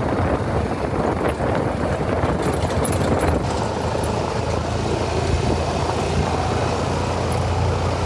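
Open-cab side-by-side utility vehicle being driven at a steady pace: a low, even engine rumble with road and wind noise.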